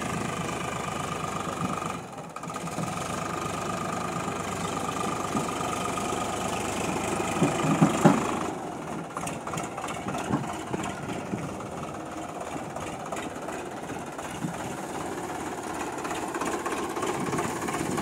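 Diesel tractor engine running with a steady whine over it, loudest about eight seconds in; just after, the whine drops away and the sound turns rougher and choppier.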